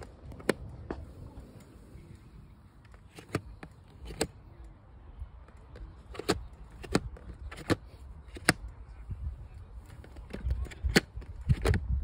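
Plastic segments of a seven-segment flip-number scoreboard being flipped over by hand to change the score, about a dozen sharp clacks at irregular intervals, some in quick pairs.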